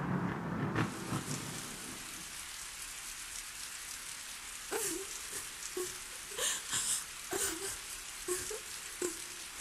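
Steady rain, with water drops falling about once a second in the second half. A low rumble dies away in the first second or two.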